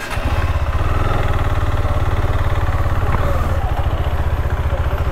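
Single-cylinder KTM 390 Adventure motorcycle engine catching just after the start and then running at a steady idle, firing in a rapid, even beat.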